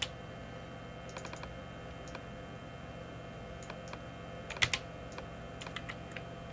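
Computer keyboard keys and mouse buttons clicking: scattered single clicks, with a quick run of three or four about a second in and a louder pair a little past the middle, over a steady faint electrical hum.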